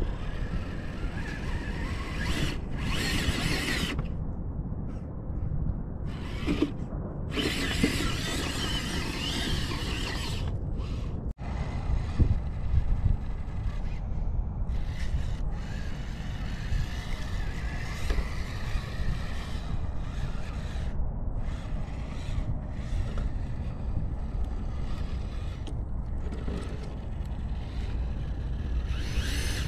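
SSD Trail King Pro RC rock crawler's electric motor and drivetrain whirring in stop-and-go spurts as it climbs a dirt and rock pile, with loose stones scraping and crunching under the tyres, over a steady low rumble.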